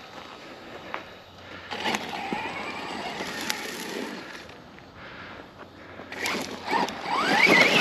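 Brushless electric motor of an Arrma Outcast 4S RC stunt truck driving over dirt and weeds, heard from a camera mounted on the truck. The motor whine climbs sharply in pitch and grows loud in the last second or so as the truck accelerates.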